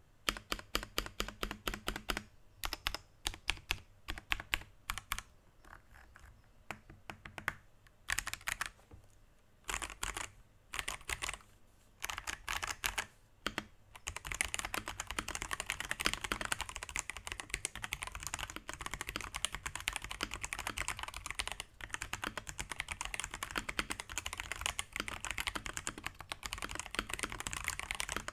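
Akko PC75B Plus mechanical keyboard being typed on, with Akko Jelly Purple tactile switches on a polycarbonate plate under PBT JDA-profile keycaps. Short runs of key presses with pauses between them, then steady fast typing for the second half.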